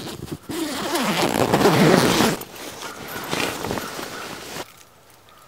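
A sleeping bag's zipper being pulled open. It is loudest for the first couple of seconds, then goes on more quietly and stops about four and a half seconds in.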